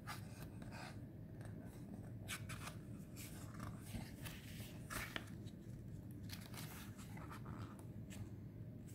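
Paper pages of a paperback guidebook being leafed through by hand: a string of brief, irregular rustles and flicks.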